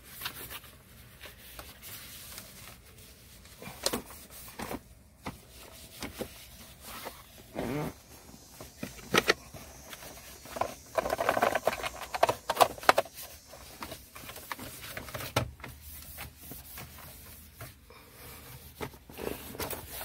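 A disinfecting wipe rubbing and scrubbing over a car's plastic center console, leather shift knob and dashboard trim. It makes irregular rustling and rubbing with scattered small clicks, busiest a little past halfway.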